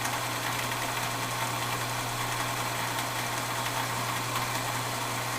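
Emco Maximat Super 11 metal lathe running steadily under power, its motor and gear train giving an even, unchanging hum.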